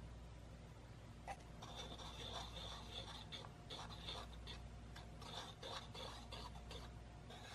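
Wire whisk stirring cake flour and baking powder in a wooden bowl: quick, faint, scratchy strokes of the wires through the powder and against the bowl, starting about a second in.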